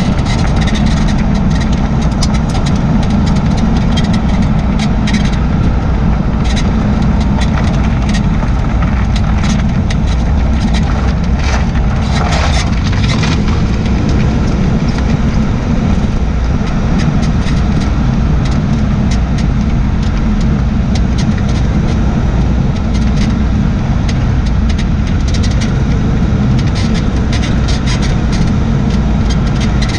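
Steady road and running noise of a 2004 Jaguar XJ6 (X350) on the move, with short squeaks and creaks scattered through it and a longer one about twelve seconds in. The creaking comes from the rear suspension, a noise the owner suspects is the recently replaced rear air strut or a failing bushing.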